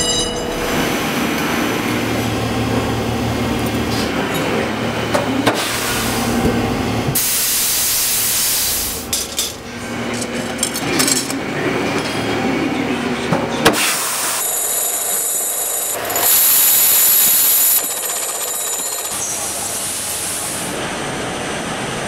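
Carabiner factory machinery: steady machine running and hissing, with scattered sharp clicks and metal knocks, and a louder hiss for about two seconds near the end.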